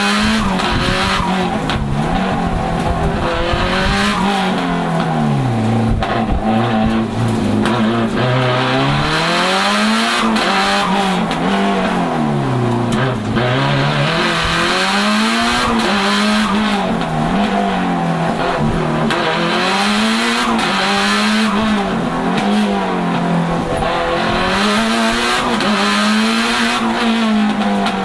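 The tuned 500 hp Lancia Delta HF Integrale Evo 2's turbocharged 2.0-litre four-cylinder engine driven hard, its revs rising and falling again every second or two as the car accelerates, lifts off and changes gear.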